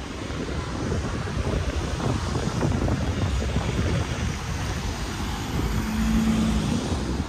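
Wind buffeting the microphone over steady outdoor traffic noise, with a short low hum about six seconds in.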